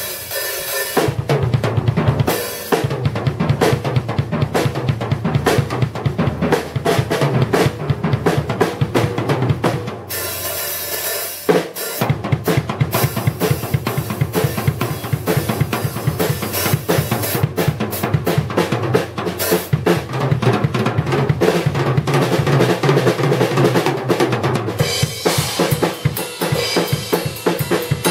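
Drum solo on a Tama acoustic drum kit: fast, dense strokes across snare, toms and bass drum with cymbal crashes. About ten seconds in the drumming thins under a ringing cymbal for a second or so, then a hard hit sets the fast pattern going again.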